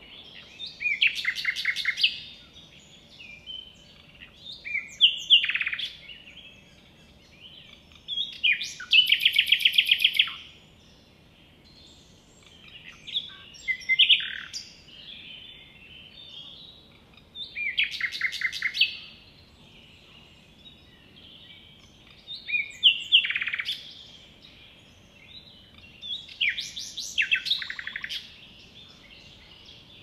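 Common nightingale singing: about seven loud phrases roughly four seconds apart, each a run of rapid repeated notes and trills, with short pauses between.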